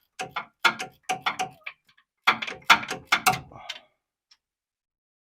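Hand ratchet clicking in two quick runs of about a second and a half each, as a nut is worked off by hand.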